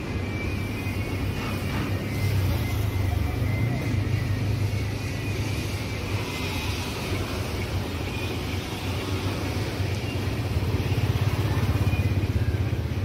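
A motor running with a steady low hum, a little louder near the end.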